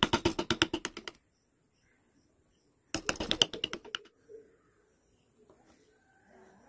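Two bursts of rapid sharp taps on wood, about ten a second, each lasting about a second, with a pause of about two seconds between: carving work on a wooden figure.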